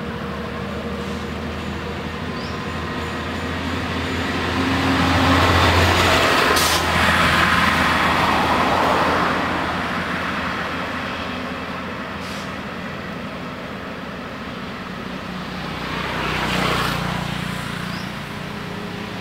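Road traffic: a steady engine hum, swelling as a vehicle passes about five to nine seconds in and again, more briefly, near the end.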